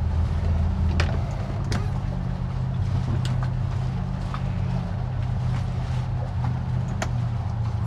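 Boat engine running steadily at low speed with a low drone, with a few sharp clicks or knocks over it.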